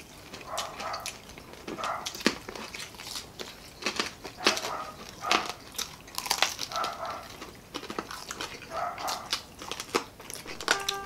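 Crisp deep-fried street food being bitten and chewed, with sharp crunches that come several times a second. A patchy, mid-pitched sound about half a second long recurs every second or two.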